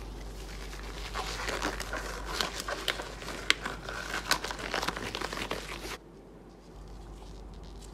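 Thermal stencil paper being cut with scissors and handled in nitrile-gloved hands: a run of crinkling and sharp snips that stops abruptly about six seconds in.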